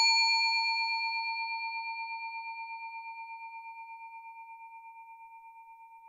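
Chrome desk service bell ringing out after a single strike, one clear metallic tone fading slowly over several seconds with a slight wavering, dying away near the end.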